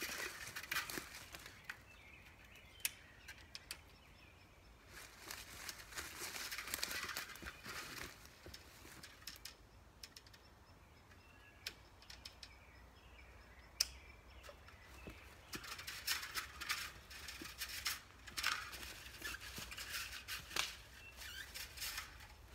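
Faint rustling and crunching of someone walking through brushy undergrowth while unreeling a spool of fence wire on a stick, coming in patches with a few sharp clicks.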